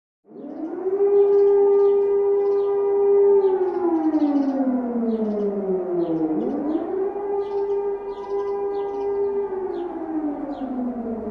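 Civil defense warning siren starting up and wailing. Its tone climbs to a steady pitch and holds for a few seconds, slides down, then climbs and holds again, in slow cycles of about six seconds.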